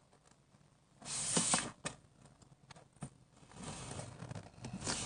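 Hands handling squishy toys close to the microphone: a short burst of rustling about a second in, a few small clicks, then lighter rustling and brushing through the second half.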